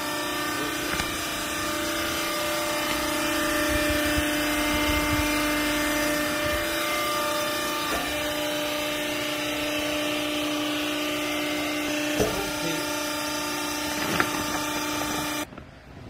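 Hydraulic baler's power unit, an electric motor driving the hydraulic pump, running with a steady hum, with a couple of light knocks from the machine being worked. The hum cuts off suddenly near the end.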